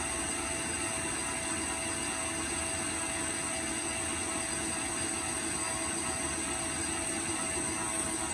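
Electric stand mixer running steadily, its flat beater turning through soft bread dough in a stainless steel bowl: an even motor whine with a high steady tone.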